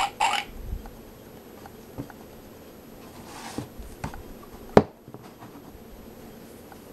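The last of the sound book's electronic pig oinks, cut off about half a second in; then a cardboard board-book page is turned with a soft rustle and the book is shut and set down with one sharp knock nearly five seconds in.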